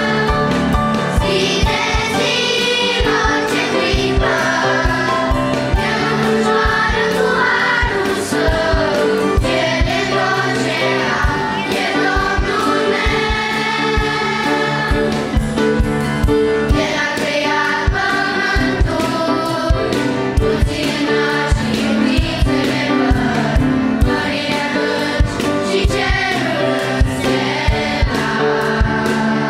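Children's choir singing a hymn in Romanian with piano accompaniment, over a steady beat.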